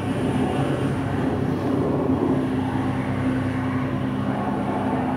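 Steady engine drone of a boat under way at sea, with a low hum that settles to a steady pitch about two seconds in, played back over loudspeakers in a room.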